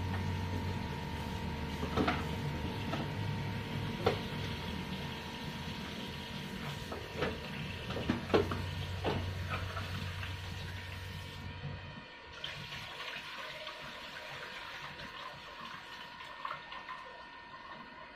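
Water running at a kitchen sink while things are washed in it, with a few sharp knocks of bowls or utensils against the basin. A low hum under it stops about twelve seconds in.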